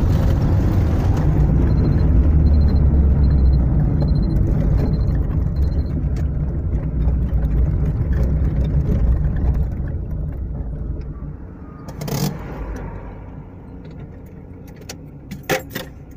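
Car engine running with a steady low rumble that fades after about ten seconds. Early on there is a string of six short, high beeps, and there are a few sharp knocks later.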